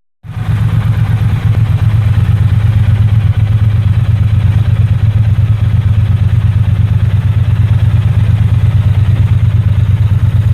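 Triumph Bonneville T120's 1200 cc parallel-twin engine idling steadily, a fast even exhaust pulse that starts just after the beginning and settles after about a second and a half.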